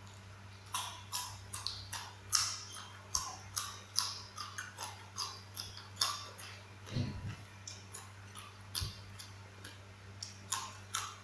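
A raw yardlong bean being bitten and chewed: a steady run of short crunches, about three a second, starting about a second in, over a faint steady electrical hum.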